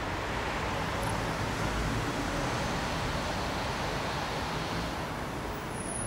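Steady, even rumble of distant road traffic, with no distinct events.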